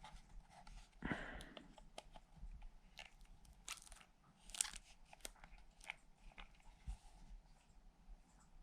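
Faint handling noise: short rustles and clicks of packaging and radio parts being moved about, with a louder rustle about a second in.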